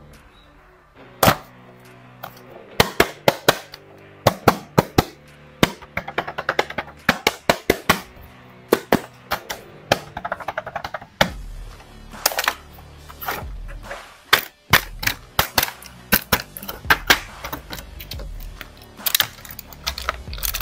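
Toy packaging being opened: a cardboard box with a clear plastic window and the plastic wrap around an action figure, handled in a run of sharp crackles and clicks. Background music plays underneath.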